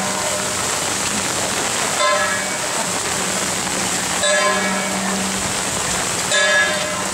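Steady heavy rain, with a bell struck three times about two seconds apart, each strike ringing briefly over the rain.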